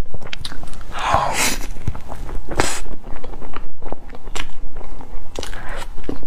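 Close-miked wet eating sounds from mouthfuls of a whipped-cream pancake: many small lip and tongue clicks and smacks, with a few longer, louder sucking sounds.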